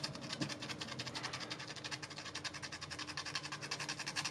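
Tip of a mouse micro switch's metal contact being rubbed back and forth on fine 600–800 grit sandpaper: rapid scratchy strokes, about eight a second, stopping just after the end. The sanding cleans the worn contact that causes the mouse's double clicking.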